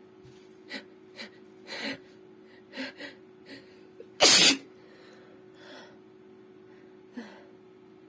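A woman sneezing: a run of short, catching breaths builds up over the first three and a half seconds, then one loud sneeze comes about four seconds in, followed by a couple of softer breaths.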